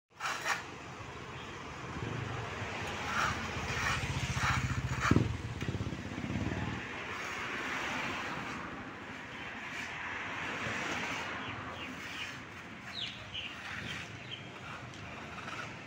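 Long stainless steel folding gate being pushed open, its wheels rumbling over concrete, with a sharp metal clank about five seconds in.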